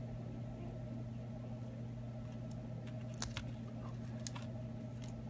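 Small metal repair tools clicking twice against an opened iPhone 6's internal parts as an adhesive-held part is pried loose, over a steady low electrical hum.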